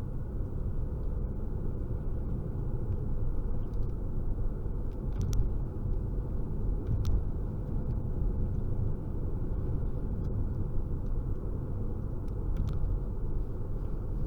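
Steady low rumble of a car in motion heard from inside the cabin: road and wind noise with strong storm winds, with a few faint clicks.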